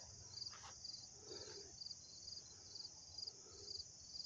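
Insects chirping in a steady rhythm, about two chirps a second, over a continuous high insect hiss.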